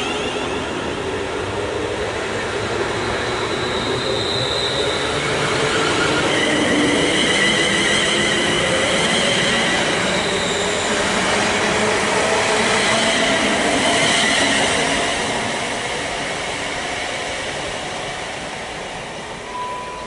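Class 350 Desiro electric multiple unit pulling out, its traction motors whining in several tones that climb slowly as it gathers speed, over wheel and rail noise. It is loudest in the middle and fades over the last few seconds as it draws away.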